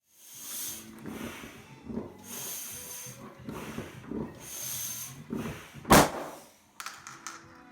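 A balloon being filled with air in hissing strokes about two seconds apart, then bursting with one sharp bang about six seconds in. Light clicks and rattling follow near the end as the chain reaction sets off.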